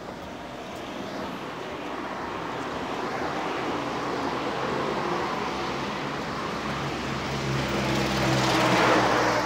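Passing road traffic: a motor vehicle's engine and tyre noise grow steadily louder as it approaches, loudest near the end as it passes close by.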